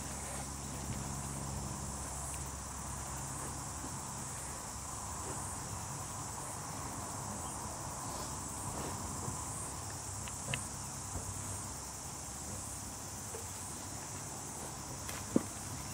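Insects chirping steadily in a high, unbroken drone, with a few faint knocks and a sharper knock near the end.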